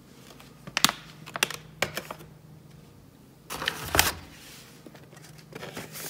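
Plastic dog-treat pouches crinkling and clicking as they are handled and lifted out of a cardboard box. A louder rustle with a soft thump comes about four seconds in.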